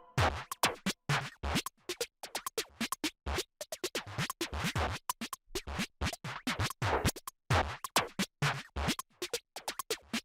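Electronic music with choppy, stuttering scratch-like cuts, many short bursts a second with gaps between them.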